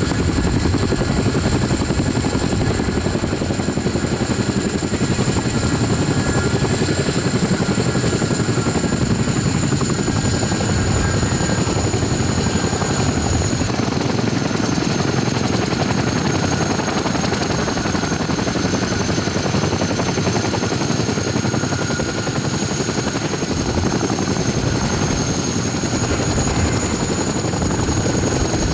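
Columbia Model 234 Chinook tandem-rotor helicopter settling from a low hover onto the ground, then running with both rotors still turning: steady heavy rotor noise under a high turbine whine. The whine shifts a little lower in pitch about halfway through, where a second, higher whine comes in.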